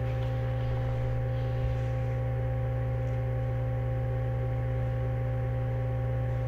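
A steady low hum with a few fainter steady tones above it, unchanging throughout. It is the background hum of the recording, with no other sound over it.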